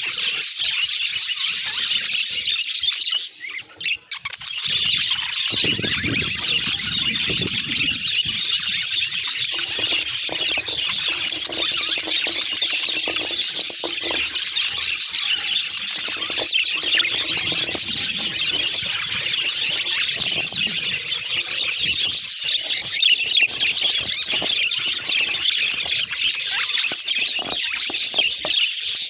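Budgerigars chattering and warbling without pause: a dense, high stream of chirps and squawks, with a brief break about three and a half seconds in.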